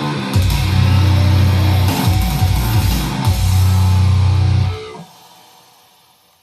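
Heavy rock music with electric guitar and drums played through a Pioneer PBM5 portable party speaker. It cuts off about five seconds in, leaving a short fading tail.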